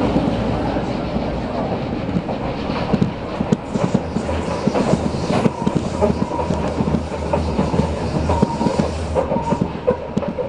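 Berlin U-Bahn F-series train running through a tunnel: a steady rumble, with the wheels clattering over rail joints in many short irregular clicks.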